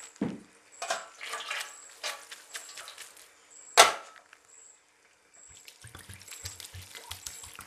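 Cooked noodles being rinsed in a stainless-steel mesh strainer over a steel bowl: water splashing and dripping through the mesh, with one sharp, loud metal clank about halfway through as the strainer is handled. In the last couple of seconds cold water is poured onto the noodles from a plastic bottle.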